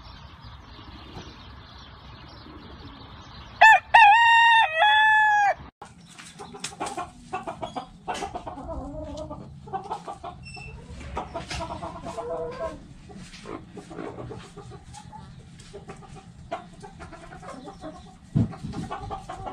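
A rooster crows once, loud, about two seconds long, cut off abruptly. Then a flock of hens clucking, with many short sharp clicks among the calls.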